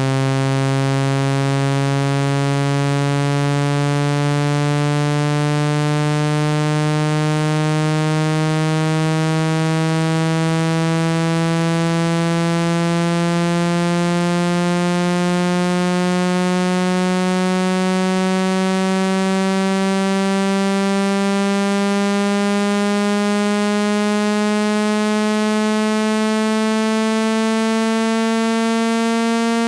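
Speaker water-ejection tone: a loud, buzzy synthesized tone with many overtones, gliding slowly and steadily upward in pitch, meant to shake trapped water out of a phone's speaker.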